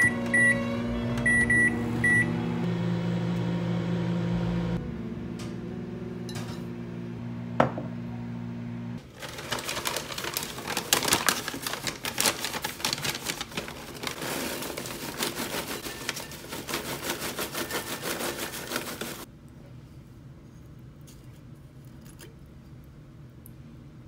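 Microwave oven keypad beeping about five times as it is set, then the oven running with a steady hum. From about nine seconds in comes a dense, irregular crackle of popcorn popping that lasts about ten seconds and then stops.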